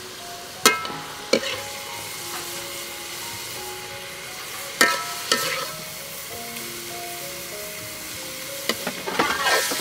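Food sizzling with a steady hiss while a metal spatula clanks against metal cookware, the clanks ringing briefly. They come in pairs about a second in and about five seconds in, then in a quick flurry near the end.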